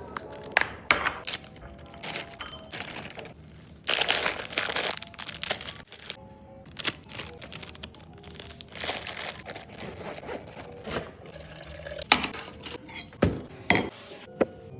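Soft background music under a string of small clinks, taps and rustles of objects being handled, with a burst of noise about a second long some four seconds in.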